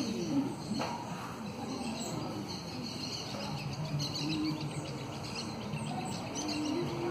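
Birds chirping in short calls over a steady background of outdoor noise, with faint distant voices.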